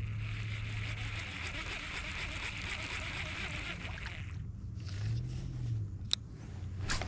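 A small boat's motor running with a steady low hum and a hiss of water for the first four seconds. Just past five seconds the pitch briefly rises and falls, and two sharp clicks come near the end.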